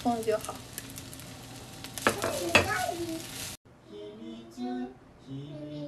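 Fried rice sizzling in a non-stick frying pan while a slotted spatula stirs and scrapes through it, with a few words of voice. About three and a half seconds in it cuts off abruptly to quieter soft singing.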